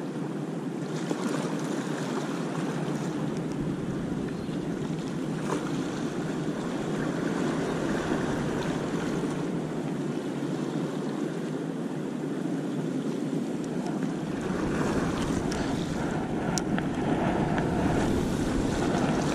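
Sea surf washing steadily on the beach, with wind rumbling on the microphone in the last few seconds.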